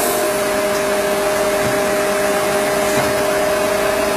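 MBJ99 stone edge polishing machine running steadily, its polishing heads working the edge of a wet stone slab: an even hiss with a steady two-note hum.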